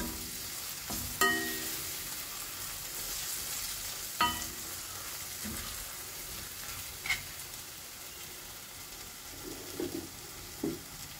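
Sliced onions, tomatoes and spice powders sizzling in a stainless steel pan as they are stirred with a metal spoon. The spoon knocks against the pan about a second in and again about four seconds in, each knock ringing briefly, with a lighter click later.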